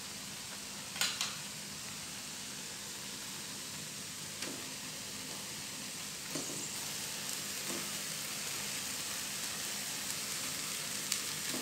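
Ground chili paste sizzling in a nonstick frying pan, its water cooked off, with no oil in the pan. A few short knocks about a second in and then through the second half as the spatula stirs and eggplant pieces are set into the pan, and the sizzle grows a little louder.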